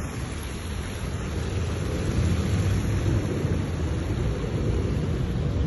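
Wind buffeting the phone's microphone: a rough, wavering low rumble with a hiss above it and no distinct events.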